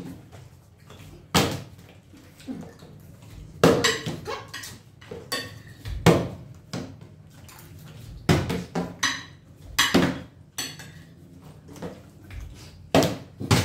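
A partly filled plastic water bottle flipped and landing with a knock on a wooden tabletop, about six times a couple of seconds apart. Between the knocks a metal spoon clinks and scrapes on a plate of rice.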